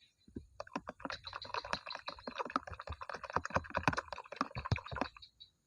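Slime being squished and kneaded by hand: a dense run of small crackling pops and clicks that stops shortly before the end.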